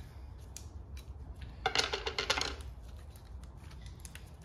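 Old piston ring being taken off a Holden grey motor piston and put down on the bench: light metal clicks, with one short metallic rattle of about a second near the middle.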